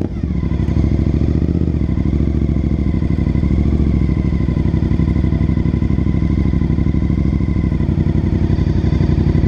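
Sport motorcycle engine running steadily at low revs, with a brief dip in level at the very start and a slight rise in pitch about four seconds in.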